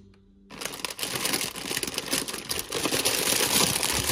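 Plastic food packets crinkling as they are handled and pushed into a wire rack, starting about half a second in.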